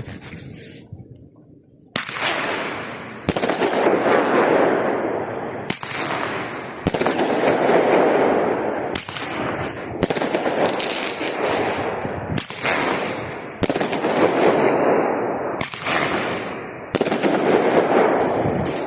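A Roman candle firing shot after shot, about a dozen in all, starting about two seconds in. Each sharp report is followed by a noisy rush lasting a second or two that fades before the next shot.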